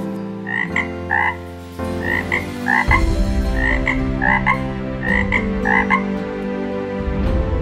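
Tree frog calling: short croaks given in pairs, a pair about every second and a half, over low sustained background tones.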